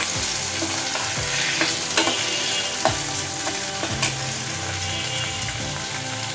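Prawns and onions sizzling as they fry in a karahi, with a metal spatula scraping and knocking against the pan about once a second as they are stirred.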